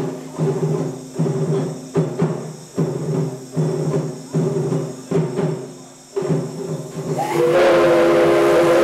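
Rhythmic music with a drum-like beat, about one beat every three-quarters of a second. About seven seconds in it is overtaken by the steam whistle of the C57 steam locomotive, a loud steady chord of several tones that keeps sounding.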